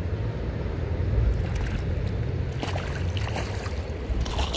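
River water flowing with a steady low rumble, and short splashes in the second half as a hooked brown trout thrashes at the surface.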